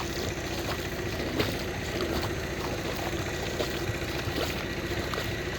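A small engine running steadily, with an even rapid pulse.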